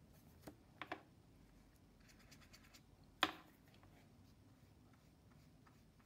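Small taps and clicks from a watercolour brush and hands at a metal mixing palette: a few light clicks near the start and one sharper knock with a short ring about three seconds in, with faint scratching of the brush between them. Otherwise near silence.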